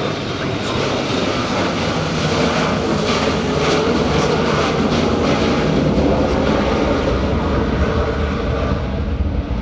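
Boeing 727 three-engined jet flying past, its engine noise swelling to a peak about six seconds in and easing slightly after.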